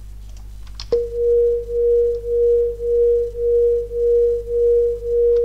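Two Blender-generated sine tones slightly apart in pitch, beating against each other: one mid-pitched pure tone that swells and fades evenly about twice a second. It comes in with a click about a second in.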